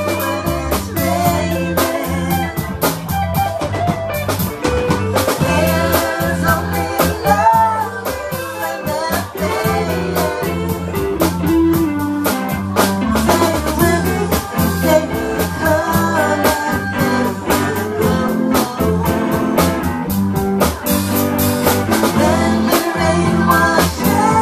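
Live band music: a woman singing lead into a microphone over guitar and a drum kit, with regular drum strikes keeping the beat.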